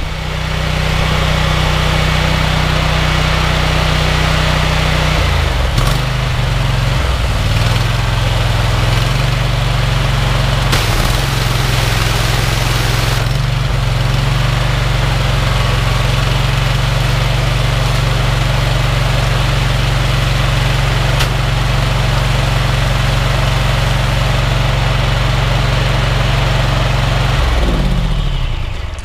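Honda GX690 V-twin petrol engine running a pressure washer pump, a steady loud note with a hiss over it. The note changes a few times between about five and nine seconds in. Near the end the engine winds down and stops.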